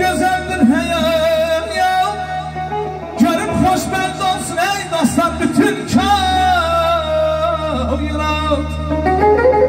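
Male singer singing into a microphone through a PA, with wavering ornamented lines and long held notes, over amplified instrumental backing that carries a steady low drone.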